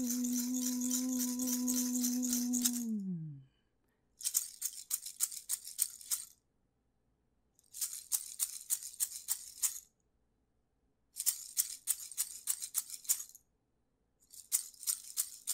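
A singer holds a chanted 'hey-o' note over a shaken hand rattle for about three seconds, the voice sliding down in pitch as it ends. Then the rattle alone is shaken in four bursts of about two seconds each, several strokes a second, with short silences between them.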